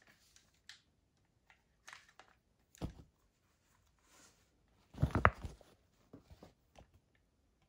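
Scattered clicks and knocks of an airsoft rifle being handled, with a louder clatter of several knocks about five seconds in.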